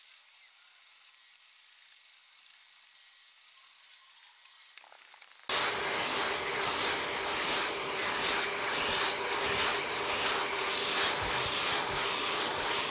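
Hand block-sanding of cured body filler with 80-grit paper: faint rubbing at first. About five and a half seconds in, a dust-extraction vacuum on the sanding block's hose starts, and its steady hiss and hum carry the rhythmic back-and-forth scrape of the strokes.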